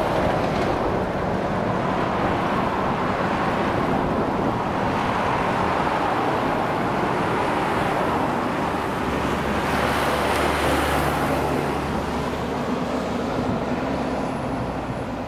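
Road traffic passing close by: a lorry with a tri-axle trailer goes past at the start, then a steady rush of tyres on the road, with another vehicle passing about ten seconds in.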